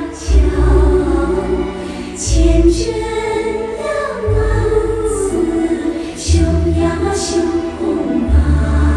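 Show music: a choir singing over deep bass notes that return about every two seconds.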